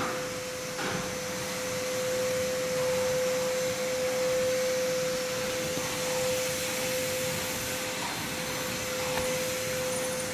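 An electric motor blowing air runs steadily: a constant hum over a rush of air.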